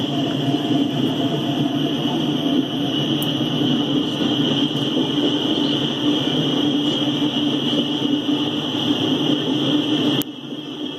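Loaded coal gondolas of a freight train rolling past, a steady noise of steel wheels on rail. The level drops briefly near the end.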